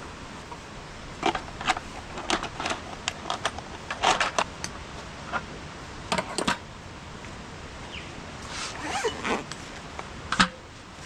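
Gear being handled: a run of short, irregular rasps and clicks, with longer rasping strokes near the middle and again toward the end.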